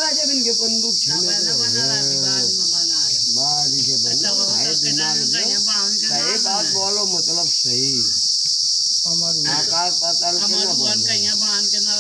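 Insects droning: a steady, high-pitched buzz that never lets up.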